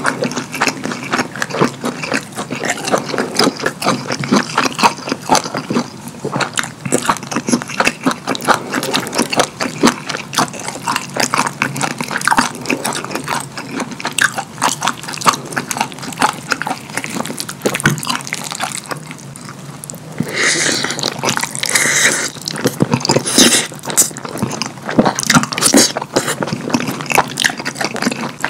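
Close-miked wet chewing and lip-smacking of a mouthful of cheesy lasagna and cheese-sauce-dipped kielbasa sausage, a dense run of sticky clicks and squelches. About twenty seconds in the sounds turn breathier and hissier for a few seconds.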